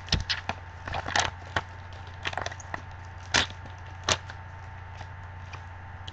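Foil trading-card pack wrapper being torn open and crinkled by gloved hands: a string of sharp crackles, loudest about three and a half and four seconds in, then stopping, over a low steady hum.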